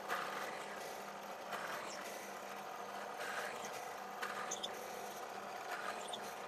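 Drill press running steadily as its bit bores a series of holes in a wooden board, the noise swelling briefly each time the bit plunges into the wood.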